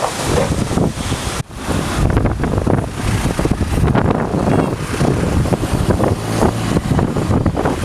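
Strong wind buffeting the microphone: a loud, rough rush with heavy low rumble, briefly dropping out about one and a half seconds in.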